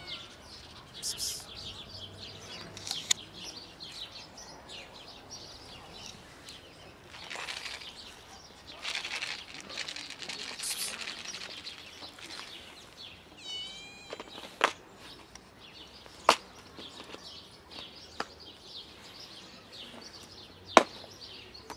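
Small birds chirping in high, scattered bursts, with a quick run of curving notes in the middle. Three sharp clicks stand out in the second half.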